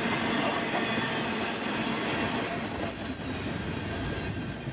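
Freight train cars rolling past on the rails, with a thin high wheel squeal about two seconds in; the rolling noise fades slowly as the train moves away.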